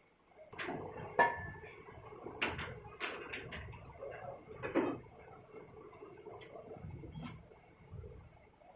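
Metal tools and parts clinking and knocking together in a scattered string of sharp clinks, one ringing briefly about a second in.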